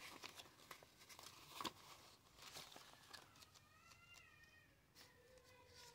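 Near silence, with faint rustles and clicks of paper money being handled and slipped into an envelope. From about halfway through comes a faint, drawn-out, wavering high call.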